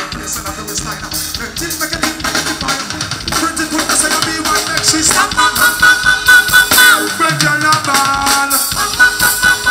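Reggae band music with drum kit and bass, growing louder about halfway through as a melodic line of held notes comes in.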